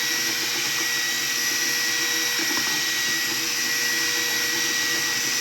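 Steady whir of a small electric motor running at an even speed, with a few faint light knocks.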